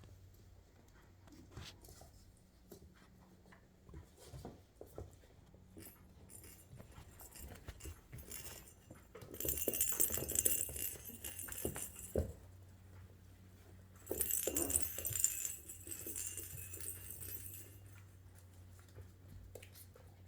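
Young puppies moving about on a wooden floor: scattered small clicks and scuffles, with two louder stretches of scratchy rustling about halfway through and again a few seconds later, over a faint steady hum.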